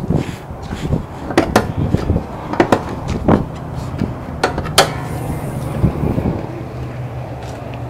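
Several sharp clicks and knocks as the hood release latch under the grille is worked and the hood is lifted, over the steady hum of the idling 2.4 L four-cylinder engine.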